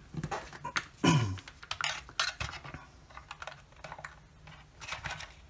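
Irregular clicks and taps of a small plastic LED projector being handled and its power plug pushed in and wiggled, with a faint steady low hum in the second half.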